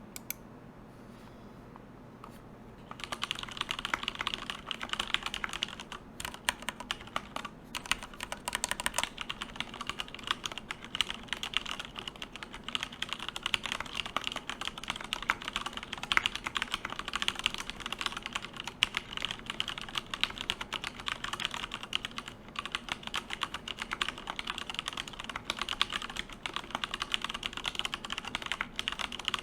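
Fast, continuous typing on a FILCO Minila Air compact mechanical keyboard with stock Cherry MX Black linear switches, plate-mounted, starting about three seconds in.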